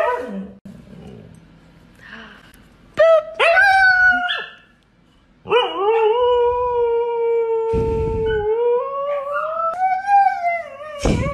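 A husky howling. A few short rising yowls come about three seconds in, then one long howl holds steady for several seconds and climbs in pitch near the end.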